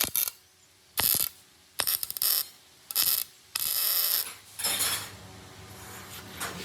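A series of short mechanical clicking and rattling bursts, roughly one every second. A quick run of clicks comes about two seconds in, and a longer rattle follows near the middle.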